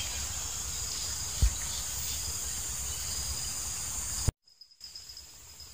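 Steady high-pitched chirring of insects over a low outdoor rumble, with a single loud thump about a second and a half in. Just after four seconds the sound cuts out abruptly, then the insect chirring comes back fainter.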